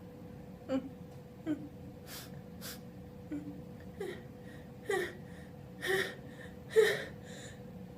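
Pre-sneeze build-up: a person's short, voiced, gasping intakes of breath, about one a second, growing louder toward the end, with a few fainter breaths between them.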